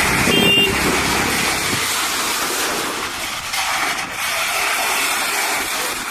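Strong gusty wind blowing, a loud, steady rushing hiss that eases slightly in its low rumble after about two seconds. A brief high tone sounds about half a second in.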